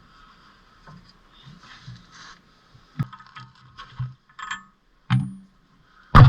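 Scattered light knocks and clinks of hand tools against metal suspension parts, with a sudden loud burst right at the end.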